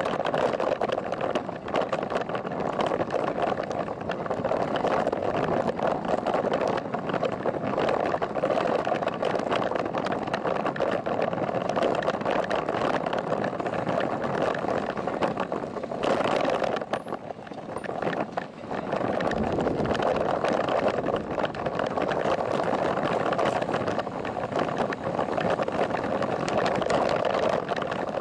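Steady riding noise from a bicycle rolling at low speed, wind and road rumble picked up by a camera mounted on the bike. It dips briefly about two-thirds of the way through.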